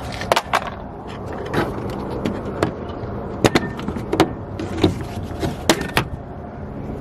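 Plastic trim pieces on a Dodge Charger's front end being pried off their retaining clips: a run of sharp, irregularly spaced clicks and snaps with handling knocks in between.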